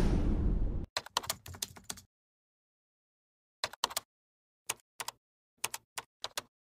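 A whoosh sound effect dies away and cuts off about a second in. Then comes a keyboard-typing sound effect: a short run of sharp clicks, a pause, and several small groups of clicks as the letters are typed in.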